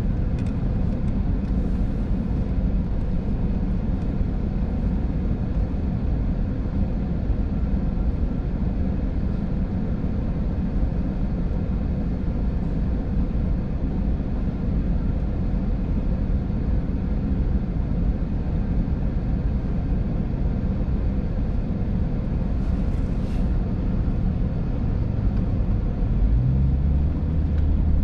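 Car engine and cabin noise heard from inside the car, a steady low rumble; about two seconds before the end the engine note rises as the car accelerates.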